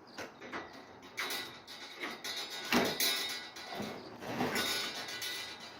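A bin being tipped and worked through a narrow gap: clattering, scraping and repeated knocks as it bumps against the opening, with one sharper knock about three seconds in.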